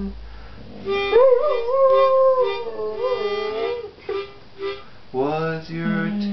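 Dog howling along with music: a long, wavering howl starts about a second in, climbs, then holds before trailing off, over a steady held instrumental tone.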